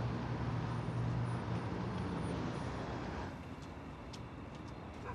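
Street traffic at night: a steady hiss with a low engine hum from passing road vehicles, which drops away about three seconds in. Quieter ambience with a few sharp clicks follows.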